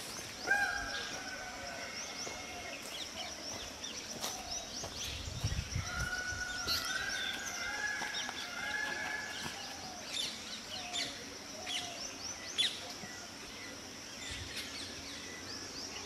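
Several wild birds chirping and calling over a steady background hiss: many short, high chirps scattered throughout, and a few longer held whistled notes, one about half a second in and a run of them from about six to nine seconds in.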